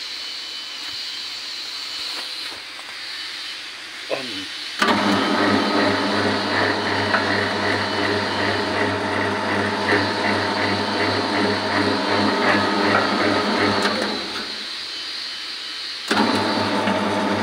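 Masema MS-S20 20-litre spiral mixer's single-phase motor and spiral hook running with a steady mechanical hum. It starts abruptly about five seconds in, stops for about a second and a half near the end, then starts again.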